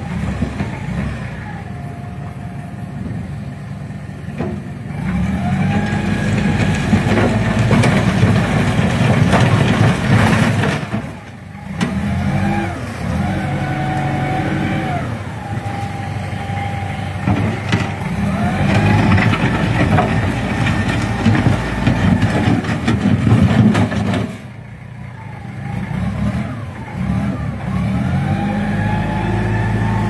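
Diesel engine of a small wheel loader running and revving up and down as it drives and lifts its bucket, twice dropping away briefly, about a third of the way in and again near the end.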